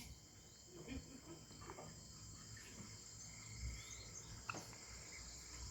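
Near silence: quiet room tone with a faint steady high-pitched whine and a few soft clicks.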